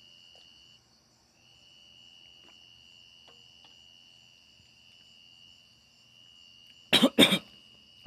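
Someone coughs twice in quick succession near the end. Behind it a faint, steady high-pitched chirring runs on and drops out briefly about a second in.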